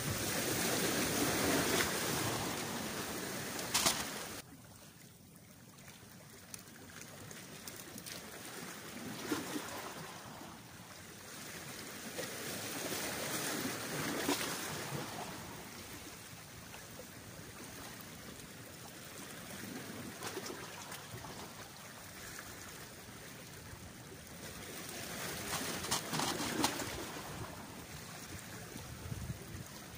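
Small sea waves washing against the rocks of a breakwater, swelling and fading every few seconds. It is louder for the first four seconds and drops suddenly about four seconds in.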